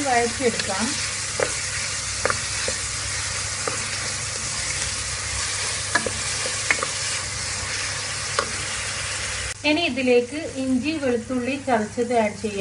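Sliced onions and green chillies sizzling in hot oil in an aluminium pot while being sautéed, with a steady hiss and occasional sharp taps of a wooden spatula against the pot. About nine seconds in the sizzle cuts off abruptly.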